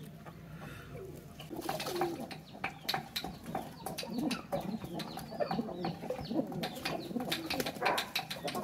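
Pigeons bathing in a shallow clay water bowl: many quick splashes and wing flaps in the water, mixed with cooing. It starts about a second and a half in.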